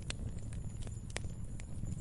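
Log fire crackling: a steady low rumble of burning wood with several sharp, irregular pops, the loudest a little past the middle.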